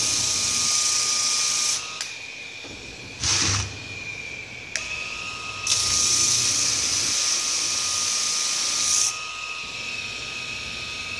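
Homemade disc sander built from a 1/4 hp washing-machine motor running with a steady whine. Its sandpaper disc on a rubber backing pad is pressed against rough wood in hissing passes, the longest from about six to nine seconds in.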